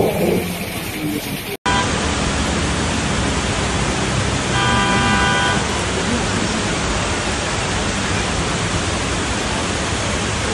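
Steady, even hiss of heavy rain. A car horn sounds once for about a second near the middle.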